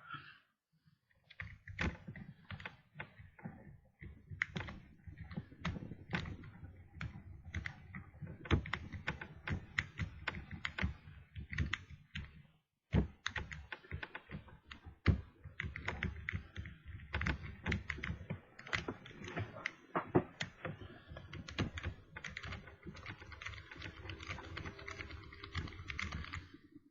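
A lock pick raking the pin stack inside a Master Lock No. 3 padlock's tight keyway: a dense run of quick, irregular metal clicks and scraping that starts about a second and a half in, the sound of the pins being worked without the lock opening.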